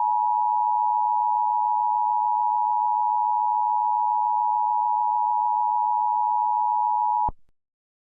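Emergency Alert System attention signal: a steady, unbroken two-tone alarm near 1 kHz. It cuts off abruptly a little past seven seconds in.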